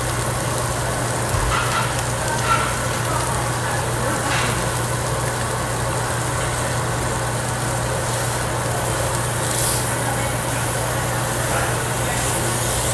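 Meat sizzling on a tabletop barbecue grill over the steady hum of the overhead exhaust hood, with a few light clicks.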